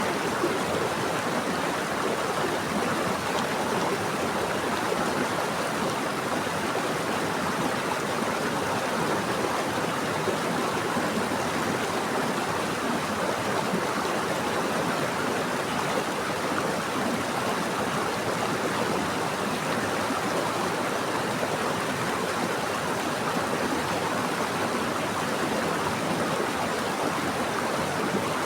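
Running water of a stream or river, a steady, even rush with no breaks.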